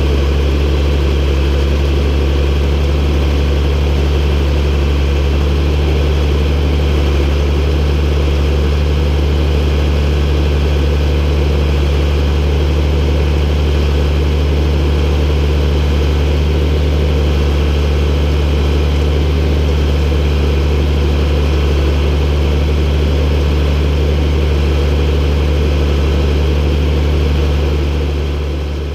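MB Trac 1800 tractor's six-cylinder diesel engine running steadily at a constant speed, fading out near the end.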